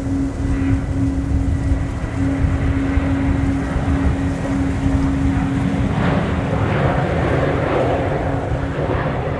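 Distant jet engines of an Airbus A340-500, its four Rolls-Royce Trent 500s, running as the airliner moves along the runway. A steady low rumble carries a held hum, and a louder rush of jet noise builds from about six seconds in.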